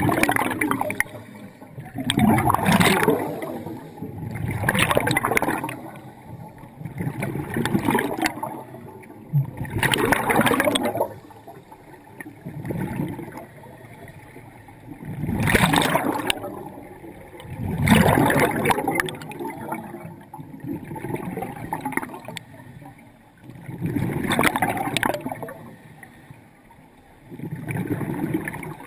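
Scuba regulator breathing underwater: exhaled air bubbles out in about a dozen noisy bursts, one every two to three seconds, with quieter inhalation gaps between them.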